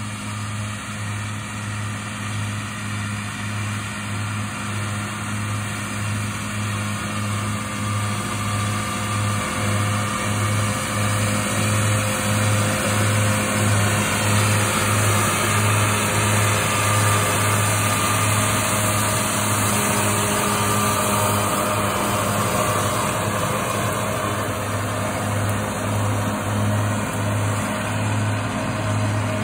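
John Deere Grasshopper 2780 self-propelled mower running steadily while mowing grass seed, its engine hum with an even low pulse and a broad hiss from the machine. It grows louder over the first half as it draws nearer.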